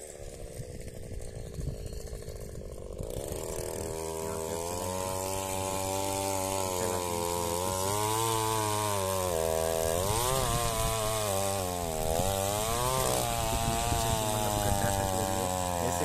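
Petrol-powered earth auger boring a planting hole in very tight soil. Its small engine is revved up about three seconds in, then runs under load, its pitch dipping and recovering as the auger bites.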